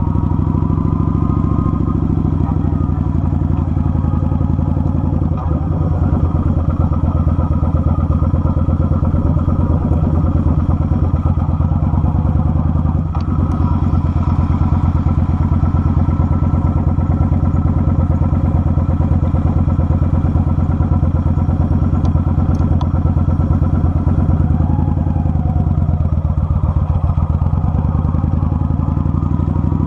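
Kawasaki Vulcan 900's V-twin engine running at a steady cruising speed on the road, easing off briefly near the end and then picking up again.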